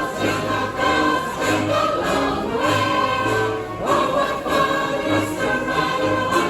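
Music: a choir singing held notes over instrumental backing with a steady bass line.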